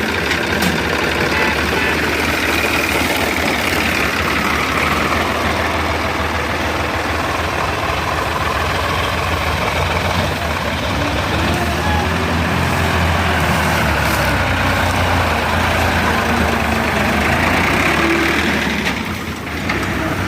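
Heavy diesel machinery running steadily, with a strong low engine hum under a noisy mechanical clatter, easing briefly near the end.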